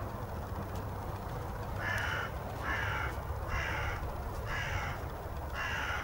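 A crow cawing five times, about once a second, starting about two seconds in, over a steady low rumble.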